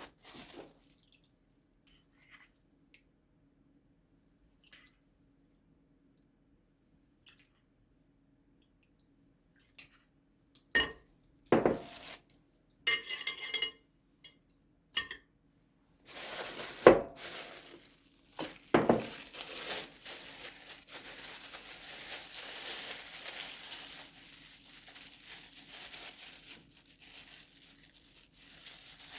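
Kitchen work with dishes and containers: light ticks, then a run of sharp clinks and knocks with a brief rattle, then a steady hiss with a few more knocks, over a faint steady hum.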